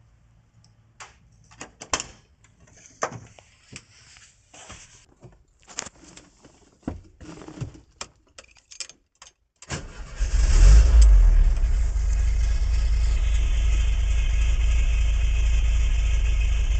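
Keys jangling with scattered clicks and knocks, then the air-cooled flat-four engine of a Volkswagen Westfalia camper van starts about ten seconds in, runs louder for a moment and settles into a steady idle.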